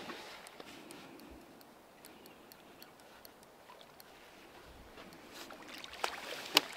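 Large carp being drawn in to a landing net: faint sloshing water and a scatter of light ticks, then the carp thrashes at the surface, ending in a sharp splash near the end.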